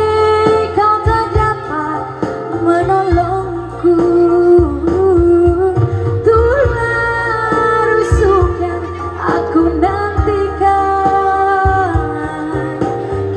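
A song playing: a woman singing a gliding melody over steady instrumental backing.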